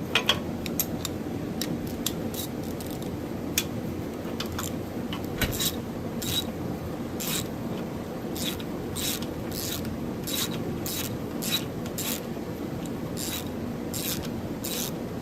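Metal parts of a 727 automatic transmission scraping and rubbing as the parking pawl assembly is worked out of the tail shaft housing: a run of short, irregular scraping strokes, about one or two a second, over a steady low hum.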